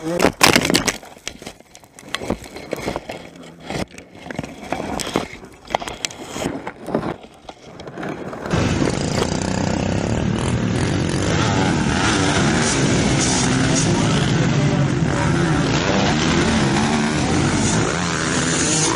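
A dirt bike crashing into brush: a loud knock about half a second in, then scattered knocks and crackling of branches. About eight and a half seconds in, the sound switches to several motocross bikes racing on a dirt track, their engines revving up and down together.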